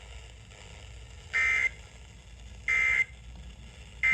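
NOAA Weather Radio SAME end-of-message data tones: short identical bursts of digital warbling about a second and a half apart, two in full and a third starting at the very end. They mark the end of the alert message.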